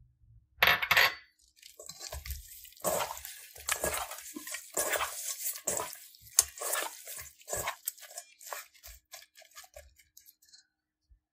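Raw carp steaks being tossed and rubbed with salt by a gloved hand in a stainless steel mixing bowl, knocking and scraping irregularly against the metal. There is a louder double clatter about half a second in, and the sound thins out and stops near the end.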